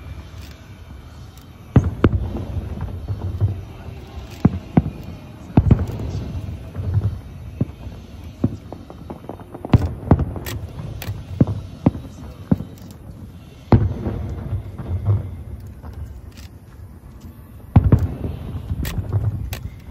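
Aerial firework shells bursting one after another. The biggest sharp bangs come about every four seconds, with quicker smaller cracks and a low rumble between them.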